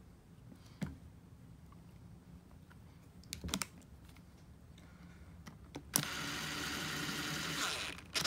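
A few light clicks and knocks of metal parts being handled, then a cordless DeWalt drill-driver runs steadily for about two seconds, spinning a bolt into a 62TE transmission valve body.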